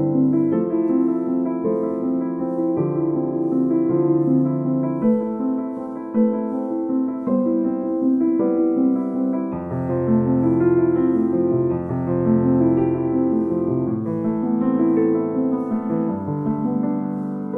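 Background piano music of held notes and chords that change about once a second.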